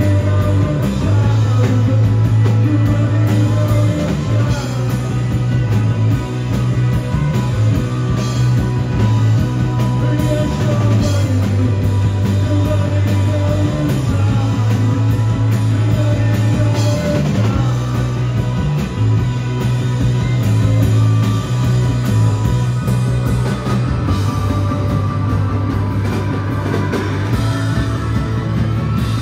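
Live rock band playing loud: a male lead vocal over electric guitars, a heavy bass line that changes note every second or so, and drums.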